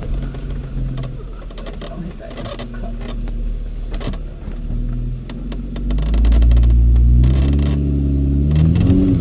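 Off-road vehicle engine working a rock ledge climb: a steady engine note that gets louder about six seconds in and rises in pitch near the end as it is revved, with scattered knocks.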